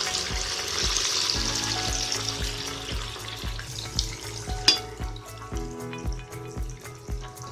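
Pieces of bafla bati sizzling in hot oil in a kadhai just after being dropped in, loudest at first and settling after about three seconds. A single sharp click sounds near the five-second mark.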